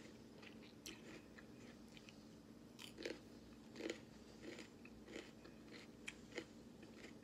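A person chewing a raw apple slice with mouth closed: a string of crisp, irregular crunches, the loudest about three and four seconds in.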